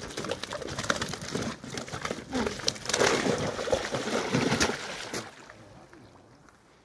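Water splashing and dripping from a wet landing net holding a large fish as it is carried, with rustling and clicking. It dies down about five seconds in.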